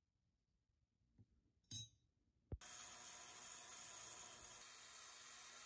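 Light metallic clinks of the polished nickel pocket watch case parts being handled. About two and a half seconds in, a sharp click, then the steady hiss of an ultrasonic cleaner running.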